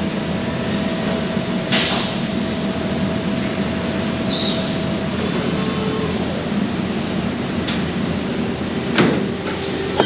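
Steady machinery hum on a steel fabrication floor where a robot-fed press brake is bending steel, with a steady tone that stops about five seconds in. A short hiss comes about two seconds in, and a knock near the end.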